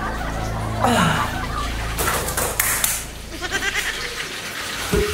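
A person's voice gives a short, bleat-like cry that falls in pitch about a second in, followed by a burst of noise.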